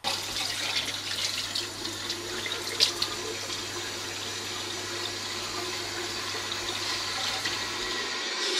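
Water running steadily from a tap into a sink, starting abruptly, with a low steady hum underneath that cuts off near the end and one short sharp sound about three seconds in.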